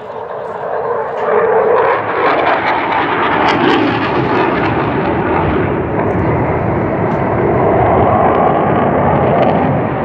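Military jet flying low overhead: a loud, steady roar that builds over the first two seconds and then holds.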